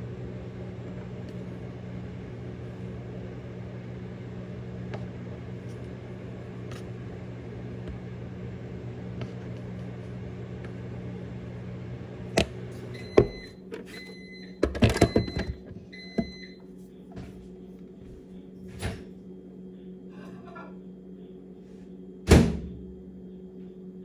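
Microwave oven running with a steady hum, which stops about halfway through with a couple of clicks, followed by a few short beeps as it finishes. Then clatter, and a loud knock near the end.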